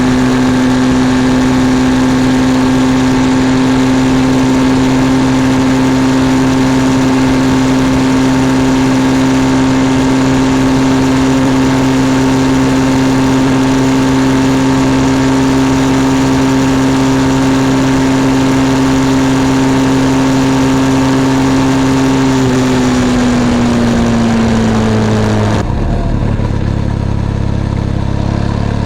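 Benelli TRK 502 X's parallel-twin engine running at steady revs under way, with a steady rush of air. About 23 seconds in, the engine note falls as the throttle is rolled off, and near the end the air rush fades and the engine settles to a lower note as the bike slows.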